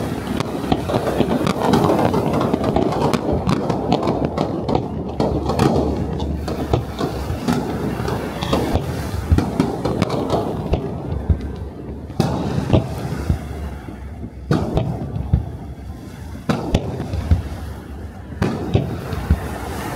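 Aerial firework shells bursting in a dense barrage of bangs and crackling. In the second half it thins to a few separate loud booms.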